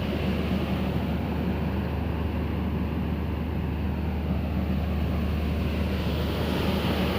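Steady rumble of a train, with a constant low engine hum beneath it.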